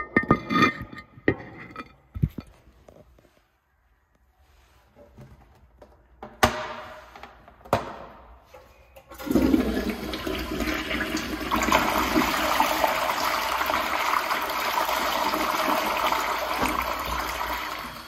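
Toilet flushing: about nine seconds in, water rushes into the bowl and swirls down the drain loudly for about eight seconds, tapering off near the end. Before it come a few scattered sharp clicks and knocks.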